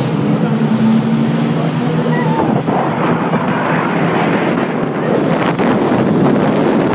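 Speedboat engine running at speed through turbulent water, its steady hum plain for the first couple of seconds, then mostly covered by rushing water and wind buffeting the microphone.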